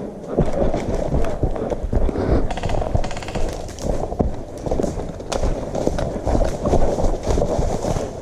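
Irregular heavy thumps and scraping rustle from the camera being jostled by fast movement, with a quick string of sharp clicks about three seconds in.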